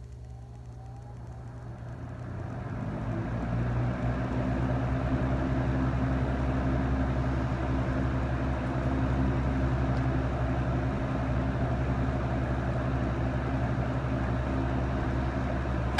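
Vintage Frigid three-speed push-button box fan switched on and spinning up over about four seconds, then running steadily: a low motor hum under the rush of air from the blade.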